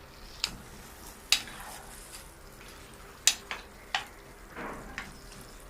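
A spoon stirring vegetables and sauce frying in a pan: a low sizzle, with about six sharp knocks of the spoon against the pan.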